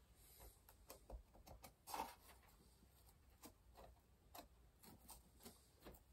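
Faint, scattered light taps and clicks of hands handling and pressing carved foam rock pieces into place on a model railway baseboard, the loudest about two seconds in.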